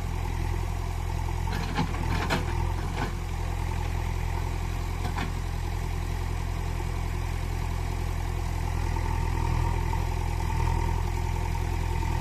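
Steady engine-idling sound, a low even rumble like a heavy diesel excavator at idle, with a few light clicks about two seconds in and again near five seconds.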